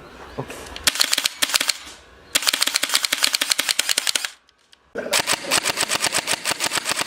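Airsoft guns fired in rapid semi-automatic, each trigger pull a sharp single shot in quick even strings. A few scattered shots come first, then a fast string, a brief silent break about four and a half seconds in, and another fast string.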